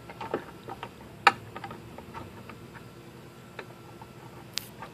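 Light, irregular plastic clicks and taps from a BMW 323's amber front turn-signal housing being handled and lined up in its slot beside the headlight, with one sharper click about a second in and another near the end.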